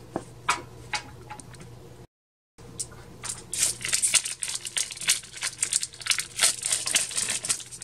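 Foil wrapper of a Yu-Gi-Oh! booster pack being torn open and crinkled, a dense run of crackling from about three seconds in. Before it come a few light clicks, then a brief gap of dead silence about two seconds in.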